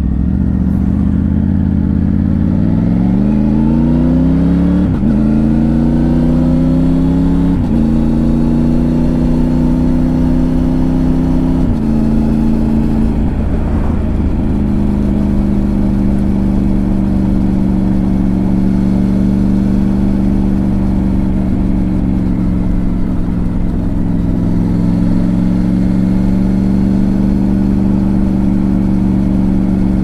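Triumph Tiger 900 Rally Pro's three-cylinder engine accelerating. Its note rises and drops back with each upshift about 5, 8 and 12 seconds in, then it holds a steady cruise from about halfway on.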